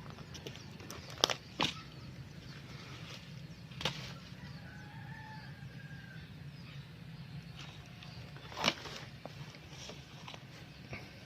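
A rooster crowing faintly, one drawn-out call a few seconds in, over a low rumble, with a few sharp knocks and rustles close by; the loudest knock comes near the end.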